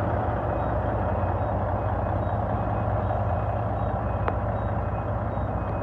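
Caterpillar 3406 diesel engine of an International 9300 semi truck running steadily at a low, even pace, with a single sharp click a little after four seconds in.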